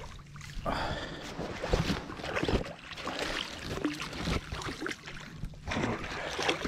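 A hooked trout splashing and thrashing at the water surface close by as it is played toward a landing net, with wind on the microphone.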